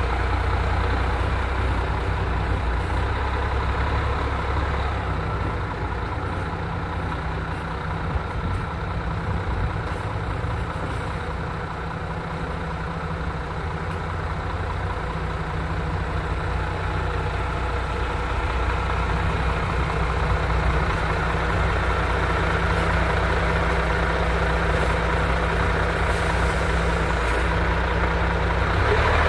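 MAN TGX 28.500 truck's 12.4-litre straight-six diesel running at low revs as the truck manoeuvres slowly, a steady low drone. The drone fades a little as the truck moves away, then grows again as it comes back close.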